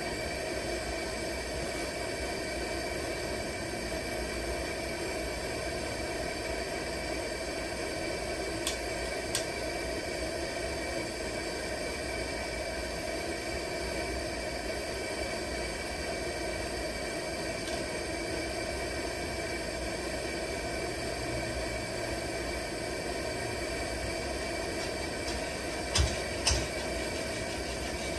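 Main burner of a vintage 1940s Preway P4521 two-burner camp stove running steadily under a pot of water, an even hiss of burning fuel. A couple of faint clicks come about nine seconds in, and two sharper clicks come near the end.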